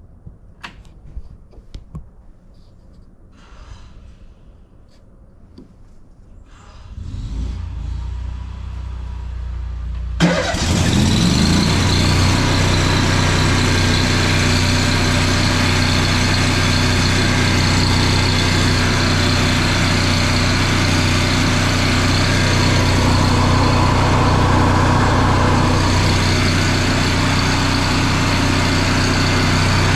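Engine-driven welder starting: a few light clicks, then the engine turns over from about seven seconds in, catches with a sudden jump in loudness about ten seconds in, and runs loud and steady.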